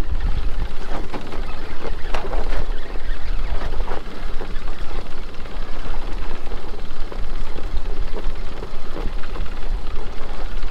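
Wind buffeting the microphone over water rushing past a small aluminium boat under way on choppy sea, its outboard motor running at trolling speed, with a few splashes against the hull about two and four seconds in.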